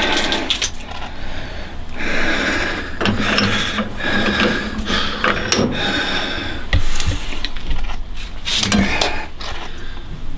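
Tape being pulled off the roll and wrapped around the fingers and wrist: a series of rasping pulls, each a second or two long, with a few sharp clicks.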